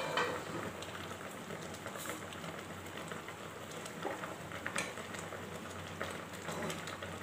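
Prawn curry in coconut milk simmering in a kadai on a gas flame: a steady fine bubbling and crackle, with a spatula stirring through it and a few light scrapes and clicks against the pan.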